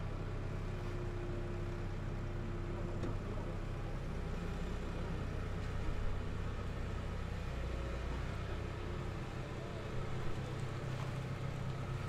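Diesel engine of a Komatsu PW160 wheeled excavator idling with a steady low drone, the machine standing still with its bucket on the ground. It swells slightly louder for a moment about six seconds in and again about ten seconds in.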